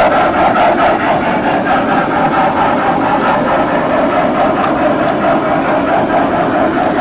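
Large-scale model train of Denver & Rio Grande Western passenger coaches rolling past on its track: a steady running noise with a faint, regular clicking.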